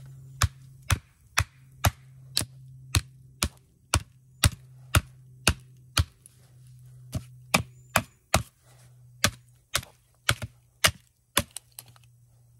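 A wooden baton strikes the spine of a Reiff Circadian bushcraft knife, driving the blade down to split a knotty log. Sharp woody knocks come about two a second, with a short pause a little past halfway.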